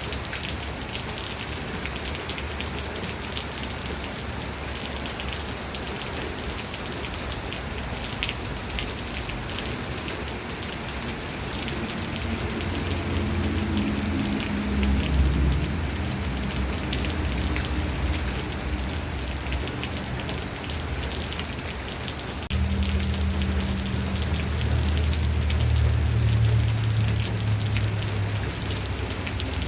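Steady rain falling on a surface, with dense pattering drops. A low rumble swells twice beneath it: once from about twelve to sixteen seconds in, and again from about twenty-two seconds in until near the end.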